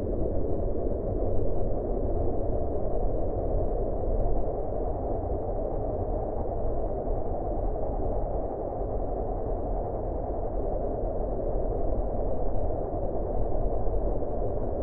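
Steady, low wind noise with a deep rumble, swelling and easing slightly in strength.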